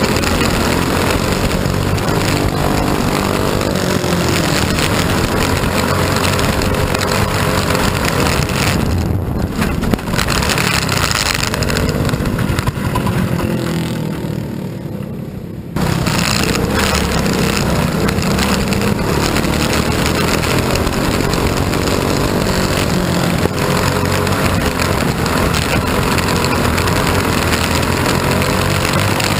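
Mini wedge dirt race car's engine running hard, heard from the open cockpit. Around the middle the engine sound fades away for a few seconds, then comes back abruptly.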